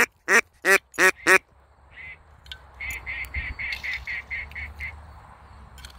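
Duck call blown in a run of loud, evenly paced quacks, about three a second, ending about a second and a half in. A quieter, faster run of short quacks follows from about two to five seconds in.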